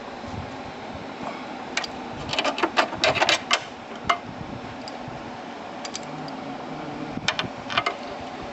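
Socket ratchet wrench clicking in short runs as bolts are turned, a busy run about two to three and a half seconds in and another near the end.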